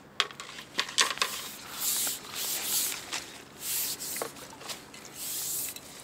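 Rustling and scraping of a landing net and bankside grass as the net, with a freshly caught bream inside, is lifted out of the water and set down on the grass. There are a few sharp clicks and knocks in the first second or so, then several swells of rustling.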